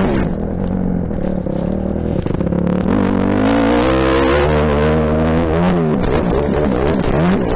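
Motocross bike engine running hard under the rider, revs falling and climbing again as the throttle is rolled off and back on, with a dip and pick-up just after the start and again near the end, heard close-up from a helmet camera.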